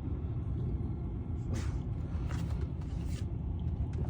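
Steady low rumble of blizzard wind, with a few faint brief hissing rustles.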